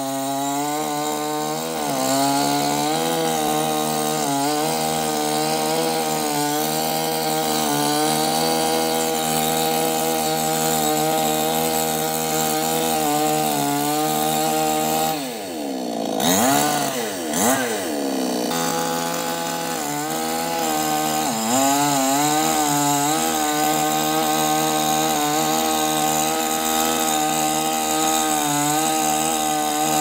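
Chainsaw running while cutting tree limbs, its engine note wavering with the load. About halfway through, the engine speed drops and swings back up over a few seconds.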